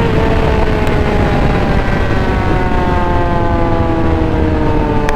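Yamaha R6 600cc inline-four engine at high revs, the pitch sliding slowly and steadily down as the bike slows off the throttle, over a steady rush of wind on the microphone.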